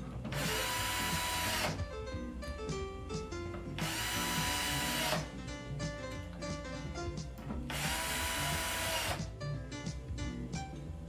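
Cordless drill driving screws through steel concealed cabinet hinges into a wooden door, in three runs of about a second and a half each. Plucked guitar music plays underneath.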